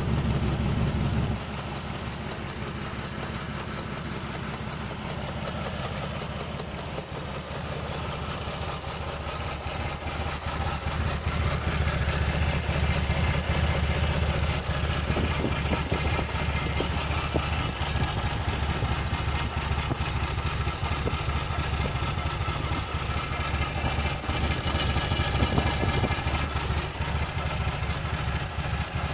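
Toyota Land Cruiser FJ80's straight-six engine idling roughly, with an uneven beat; it is louder for the first second, drops back, and grows louder again from about ten seconds in.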